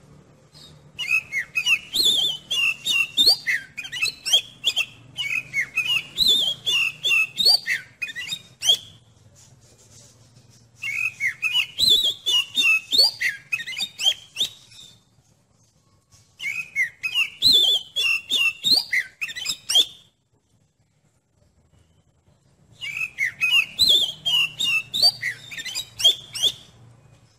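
Oriental magpie-robin (kacer) singing: four bouts of fast, varied whistled notes, each several seconds long, with short pauses between them.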